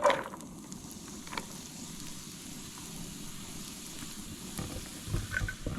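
Chopped onion tipped into hot oil in a frying pan: a sharp hit as it lands at the very start, then a steady sizzle.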